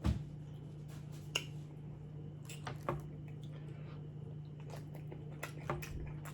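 Close-up wet eating sounds from a chili cheese dog being chewed: scattered smacking clicks and squishes, with a low thump at the start. A steady low hum runs underneath.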